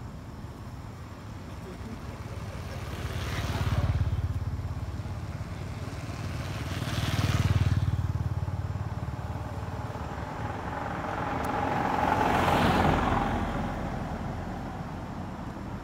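Motorbikes and small vans driving past on a paved road. Three pass one after another, each engine swelling in loudness and fading away.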